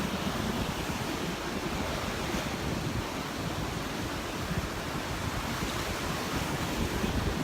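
Surf washing onto a sand beach in a steady wash of noise, with wind buffeting the microphone in low, irregular rumbles.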